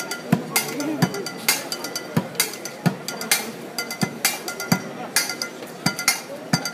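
Percussive street music laid over the pictures: a steady beat of low drum thumps, about three every two seconds, with sharp clicking and clinking strikes between them.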